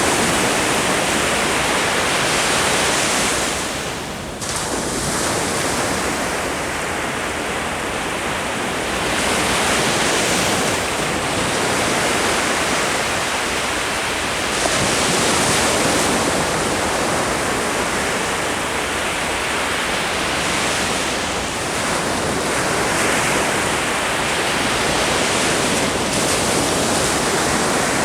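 Ocean waves breaking and washing ashore in a continuous rush of surf that swells and eases every few seconds. There is a brief lull about four seconds in before the next wave breaks.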